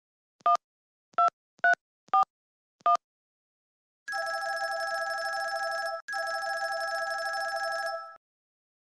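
Electronic beeping and ringing. Five short beeps come in the first three seconds, then a trilling, telephone-like electronic ring sounds for about four seconds, broken briefly halfway through.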